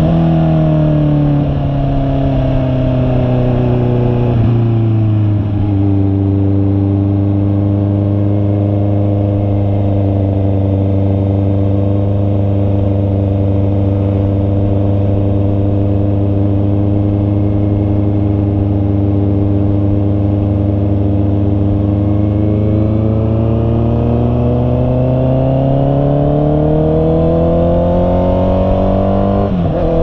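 Honda CB650R's inline-four engine heard from the rider's seat under way. The engine note drops over the first few seconds with a gear change, holds steady at a cruise, then climbs from near the end of the second third and breaks off in a quick upshift just before the end.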